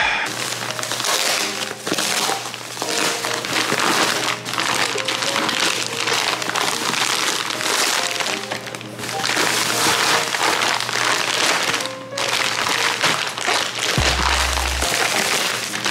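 Plastic frozen-dumpling packages and a foil insulated bag crinkling and crackling as they are handled and unpacked, over background music.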